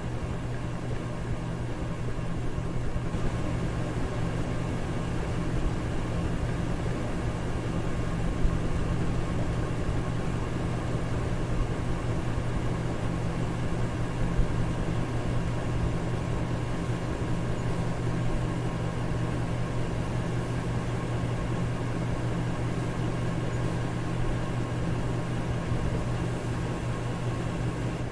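Electric fan running steadily: an even rushing noise over a low motor hum.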